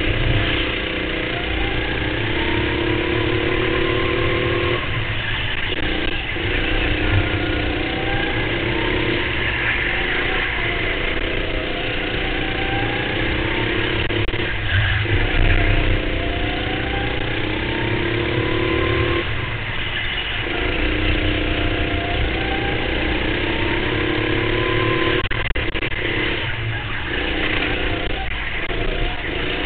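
Go-kart engine heard onboard at racing speed. Its pitch climbs steadily along each straight and drops away as the driver lifts off for the corners, about three times over.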